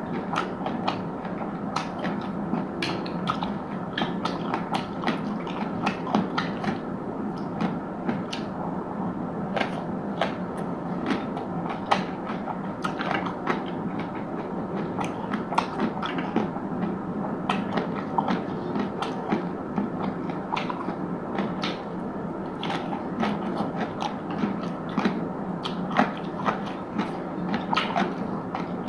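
A person chewing and biting food close to the microphone, with many sharp crunches at an irregular pace over steady mouth sounds.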